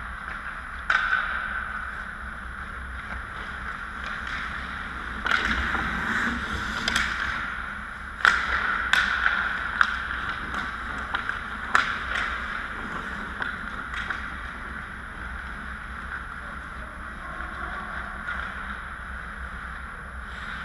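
Ice hockey play near the net: skate blades scraping and carving on the ice, with sharp clacks of sticks and puck, loudest in a cluster through the middle, over steady rink hiss.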